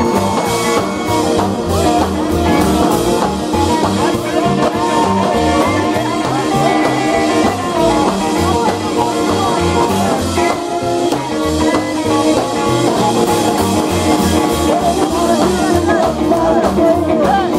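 Live rock 'n' roll band playing, with upright double bass, electric guitar and drums, and a male singer at the microphone.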